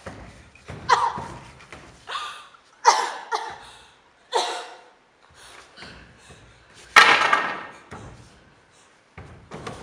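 Stage fight on a wooden theatre stage: a string of sudden thuds and short shouts or cries, each with an echoing tail. The loudest hit comes about seven seconds in.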